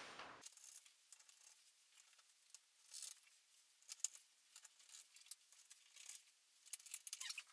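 Faint clicks and small rattles of screws and a screwdriver as screws are put back into an opened Triton T80z electric shower unit and started loosely, not yet driven home. There are a few sharp single clicks about three and four seconds in, and a quick run of clicks near the end.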